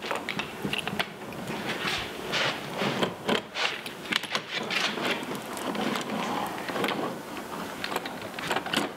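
Hand seam roller pressed back and forth over DuPont flashing tape on Tyvek housewrap along a window jamb: irregular rubbing strokes with small clicks and scrapes.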